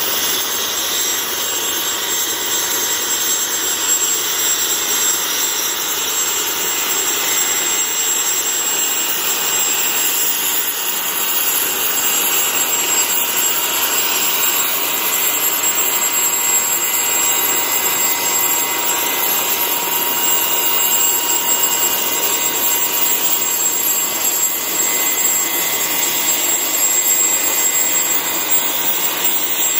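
Mosquito XET helicopter's turbine engine running steadily on the ground, a continuous rushing whine with several high, steady tones.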